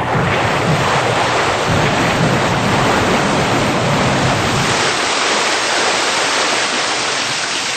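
Loud, steady rushing hiss of noise with a low rumble beneath it that drops away about five seconds in: the sound effect of a production-logo sting.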